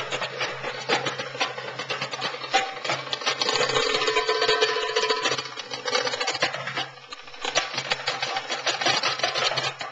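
Goblet drum played fast with the hands: a dense, rapid run of strokes, easing off briefly about seven seconds in before picking up again.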